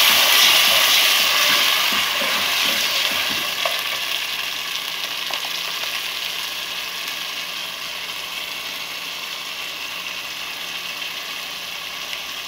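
Tomato sauce just poured into a pan of onion and garlic frying in oil, sizzling, with a metal spoon stirring in the first few seconds. The sizzle is loudest at the start and gradually dies down.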